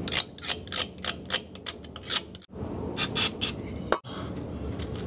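A rag scrubbing grime off a metal ID tag on a truck's rear axle differential, so the gear ratio can be read: quick, irregular scratchy rubbing strokes, several a second, turning into a steadier rub about four seconds in.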